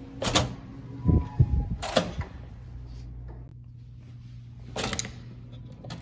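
Heavy stairwell fire doors with push-bar latches: sharp latch clacks and low thuds as a door opens and swings shut, with a brief creak about a second in. A low steady hum runs between the clacks.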